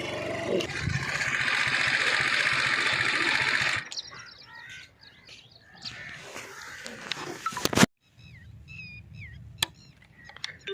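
A steady rushing noise that cuts off suddenly about four seconds in. After it, small birds chirp and call in short, high, sliding notes, with a few sharp clicks among them.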